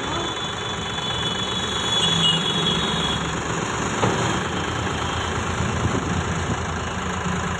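Mahindra 275 DI TU tractor's three-cylinder diesel engine running steadily, with a faint high-pitched whine over the first three seconds and a single knock about four seconds in.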